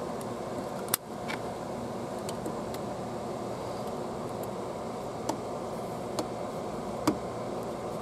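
Plastic clicks from a handheld car vacuum's dust canister being unlatched and handled: a sharp click about a second in, then three lighter clicks in the second half, over a steady hum of background noise.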